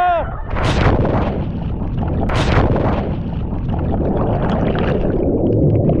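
A jumper and a hand-held camera plunging off a jetty into the sea: a loud splash on hitting the water, a second splash about two and a half seconds in, and a steady muffled rumbling of water while the camera is under the surface.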